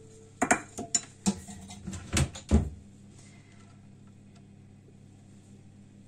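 Kitchen things being handled on a counter: a quick run of sharp knocks and clatters over about three seconds, the loudest near the end of the run, then quiet room tone.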